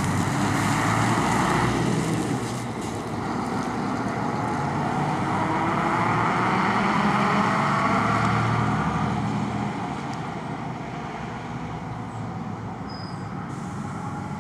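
Heavy truck diesel engines running as lorries pull away and drive past. The sound is loudest in the middle and falls off after about ten seconds.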